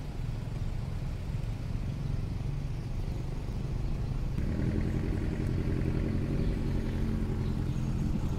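Low engine rumble, with a steady engine hum coming in about halfway through.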